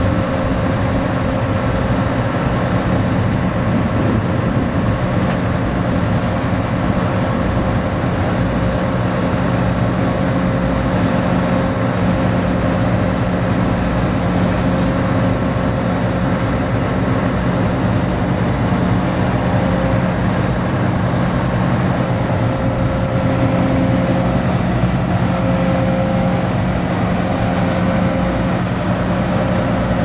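John Deere 9880i STS combine harvester's diesel engine running steadily at an even, unchanging speed.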